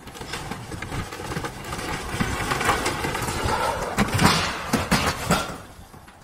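Corrugated sheet-metal roofing and wooden boards clattering and scraping as they are shoved down a steep bank onto a debris pile, with a run of loud metal crashes about four to five seconds in.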